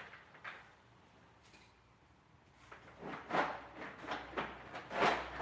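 Tools being rummaged through while searching for a socket: a few separate knocks and clatters, starting about three seconds in, after a quiet stretch.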